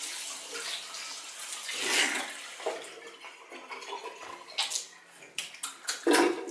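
Water running from a bathroom tap into a sink, splashing as hands are rinsed under it. Near the end come a few sharp slaps.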